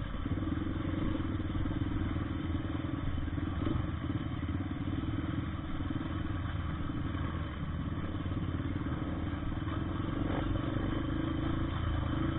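Motorcycle engine running steadily at an even pace, with no big revving.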